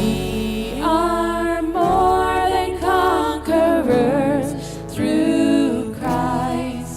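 Worship band music with sung vocals, held notes with vibrato over instruments.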